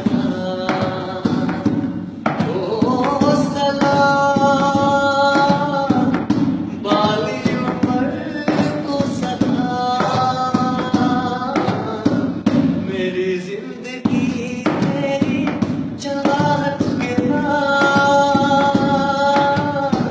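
A man singing a Hindi song, holding long notes of a couple of seconds several times, over rhythmic thumping hand percussion.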